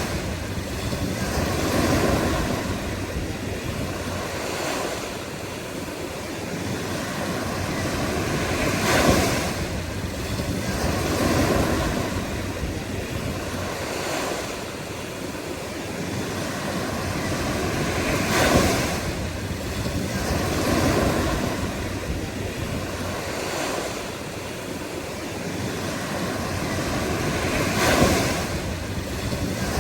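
Ocean surf: waves breaking and washing in slow surges, with three louder crashes spaced about nine to ten seconds apart.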